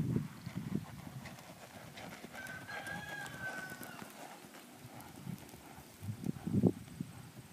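Hoofbeats of a ridden Quarter Horse mare on soft arena dirt, dull thuds that are loudest as she passes close at the start and again about six seconds in. A short, steady high call sounds briefly about two and a half seconds in.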